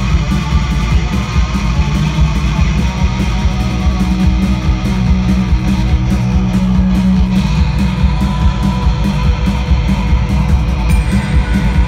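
Live rock band playing loudly: electric guitar over a steady drum beat.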